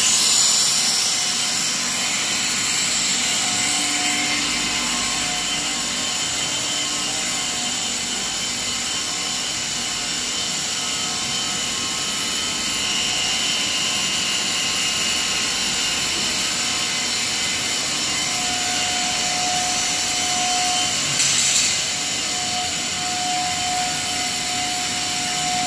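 Running PE pipe extrusion line: a steady drone of motors and fans with several steady whining tones. A higher whine comes and goes in the second half, and a short burst of hiss sounds about 21 seconds in.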